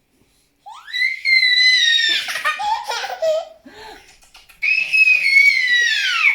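A baby girl squealing with delight: two long, very high-pitched squeals, the second falling in pitch at its end, with babbling laughter between them.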